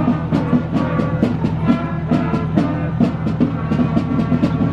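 Marching band playing live: drums striking a steady march beat, a little over two beats a second, under brass including trombones.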